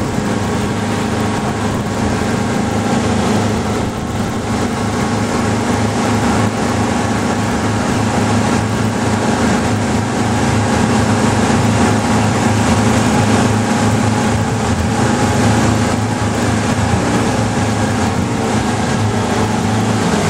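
Boat engine running steadily under way, an even drone that holds one pitch throughout, over a steady hiss.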